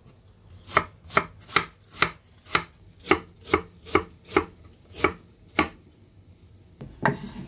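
Chef's knife chopping peeled green apples into small cubes on a wooden cutting board: about a dozen sharp knocks of the blade on the board, two or three a second, stopping about three-quarters of the way through, with a brief noise near the end.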